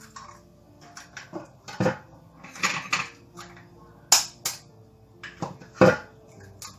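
Eggs being tapped against the rim of a plastic mixer-grinder jar and their shells cracked open: a series of sharp taps and cracks, the loudest a little after four seconds and near six seconds.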